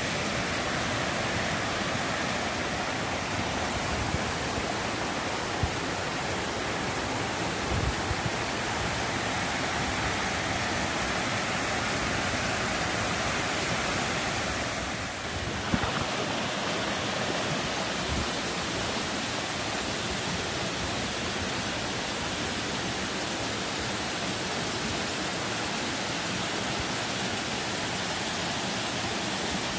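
Waterfall: water pouring over rock in a steady, even rush, dipping briefly about halfway through.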